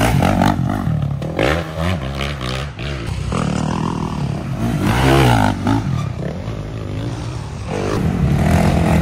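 Dirt bike engines revving up and down as race bikes ride past one after another on a dirt trail, loudest near the start and again about five seconds in.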